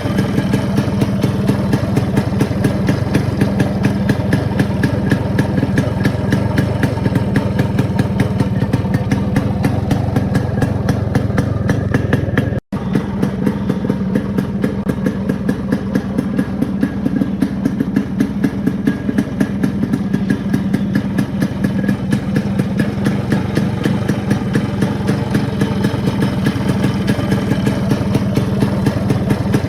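Yamaha RX100's air-cooled two-stroke single-cylinder engine idling steadily, broken by a split-second dropout about twelve seconds in.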